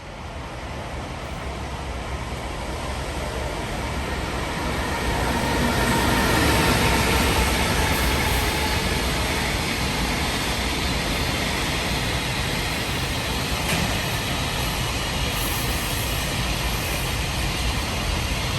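Freight train approaching and passing, its wheels on the rails swelling to a steady rumble over the first six seconds or so and holding there.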